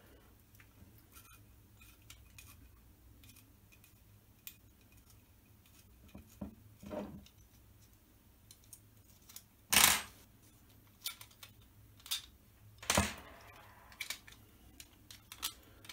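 A small hand tool working on machine screws that are too long: quiet metal handling clicks, with two louder sharp snaps about ten and thirteen seconds in.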